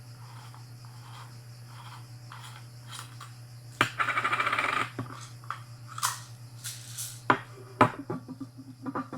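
Metallic clinking and rattling as a stainless steel flexible shower hose is handled. A sharp click about four seconds in leads into about a second of dense rattle, and a few separate clicks follow.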